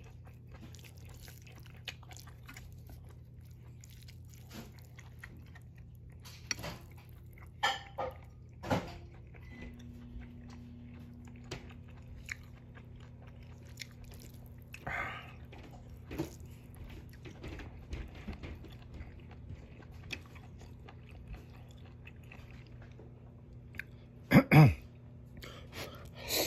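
Close-miked chewing and mouth noises of someone eating instant noodles, in short scattered bursts over a steady low hum, with a louder pair of sounds near the end.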